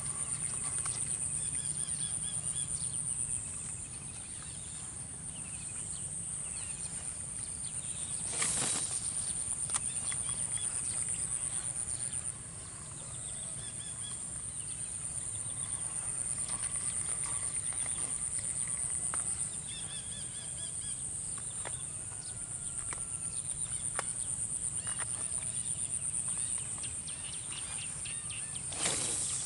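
Outdoor rural ambience by the water: a steady, high-pitched insect chorus with scattered bird calls. Two brief louder noises break in, about eight seconds in and near the end.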